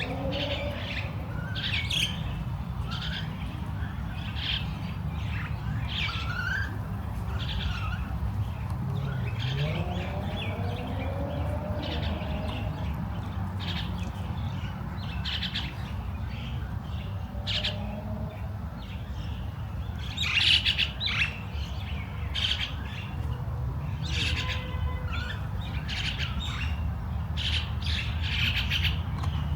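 Many small birds chirping and calling in short, overlapping bursts, with a busier flurry of calls about two-thirds of the way through, over a steady low rumble.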